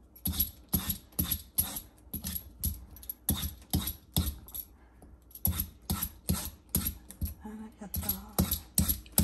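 Metal vegetable peeler scraping the skin off a green papaya in quick strokes, about three a second, with two short pauses.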